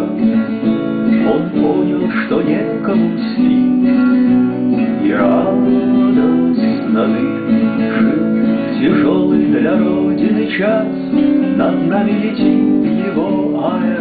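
Acoustic guitar played solo with no singing: chords strummed and picked in a steady rhythm.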